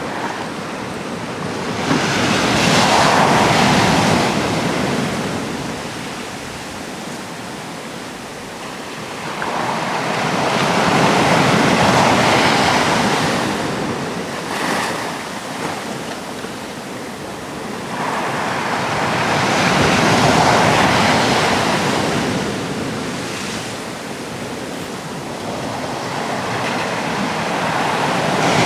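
Atlantic surf breaking on the shore: waves roll in and break in slow surges, one about every eight seconds, four in all, each building to a crash and fading before the next.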